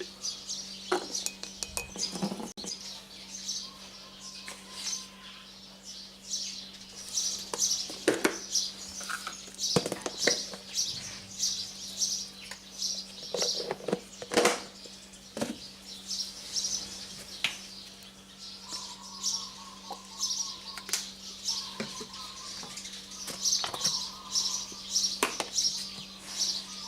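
Spoon clinking and tapping against a coffee cup as cake ingredients are spooned in, a scattered run of sharp clicks. Small birds chirp over and over in the background.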